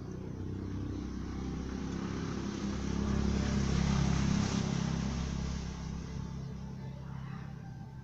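A motor vehicle passing by off-screen: its engine sound grows louder to a peak about four seconds in, then fades away.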